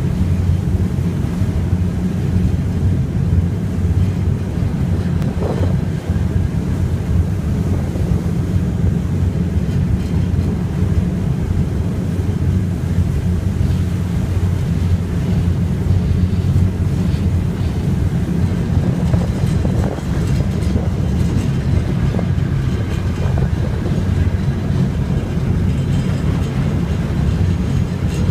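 River ferry under way: a steady low rumble of its engines, with some wind on the microphone.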